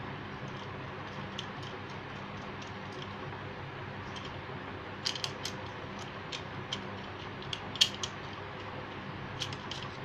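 Sharp small clicks and taps of fingers handling a plastic modular switchboard plate and its small brass terminal screws. They are scattered mostly through the second half, the loudest a little before eight seconds in, over a steady low hiss.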